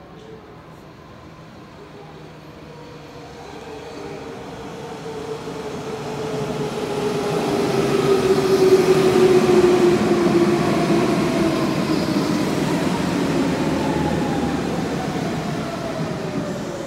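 Hanshin 5000 series electric commuter train pulling into the platform: wheel and running-gear rumble with a motor whine that slides down in pitch as it slows. It is loudest as the cars pass close, about nine seconds in.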